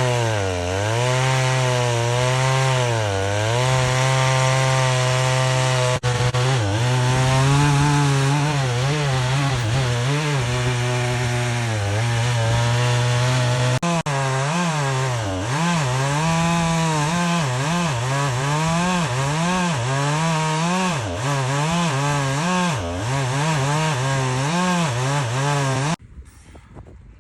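Stihl chainsaw milling a crotch of Chilean oak, its engine running under load, with the pitch dipping and recovering again and again as it bogs in the cut. About a second before the end it stops abruptly.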